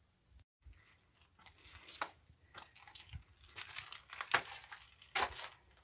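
Footsteps crunching on loose dry gravel and rock with rustling, irregular and fairly faint, loudest about four and five seconds in.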